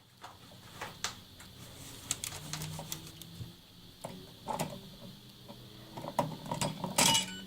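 Small pliers gripping and twisting electrical wires together at a splice: irregular metallic clicks and scrapes, with a louder clatter about seven seconds in.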